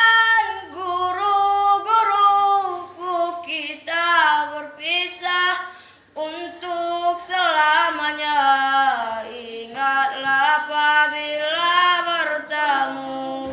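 A boy singing solo without accompaniment: an Indonesian farewell song to his teachers, sung in slow phrases with long held notes that waver and bend in pitch, with a brief break about six seconds in.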